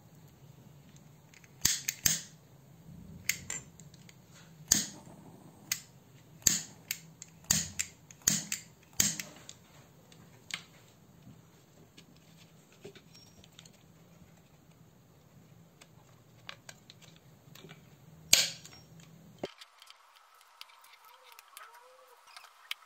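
Sharp, irregular clicks and taps of small hard plastic parts being handled, a dozen or so in a cluster over the first half, then one loud click near the end.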